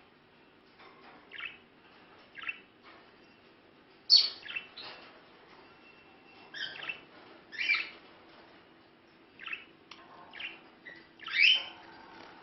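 Budgerigars chirping: short high chirps every second or so, a few louder than the rest, over a faint steady hum.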